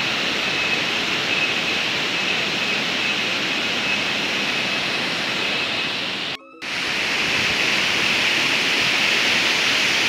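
Waterfall pouring into a rocky pool, a steady rush of falling water. It cuts out for a split second a little past halfway.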